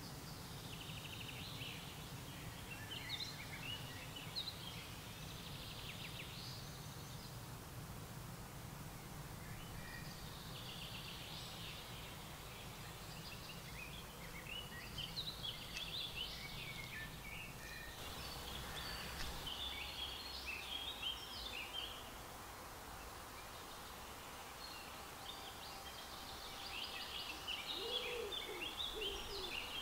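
Songbirds singing in short, repeated phrases over a steady low background rumble, which drops away about two-thirds of the way through. Near the end an owl begins hooting.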